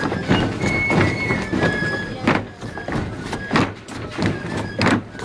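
Folk dancers' shoes striking the stage in a regular beat, about every two-thirds of a second, over folk music with high held pipe notes.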